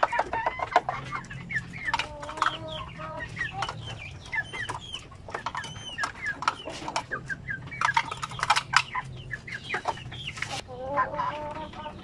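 Young shamo chickens clucking in a coop: many short calls, some rising or falling in pitch, with sharp clicks mixed in.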